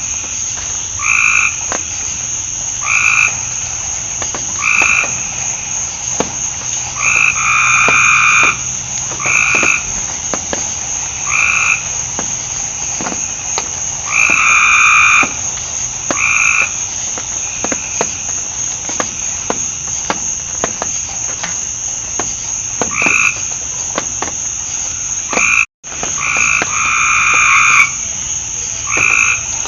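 Frogs calling in a chorus: short calls of about half a second each, repeated every second or two, with a steady high-pitched drone underneath. The sound drops out for an instant near the end.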